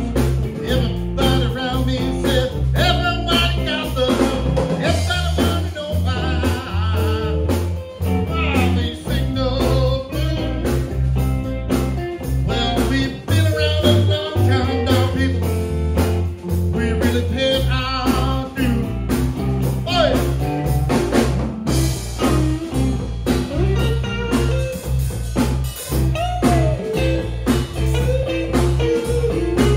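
Electric blues band playing: two electric guitars and a bass guitar over a steady beat, with a man's voice singing through a microphone in places.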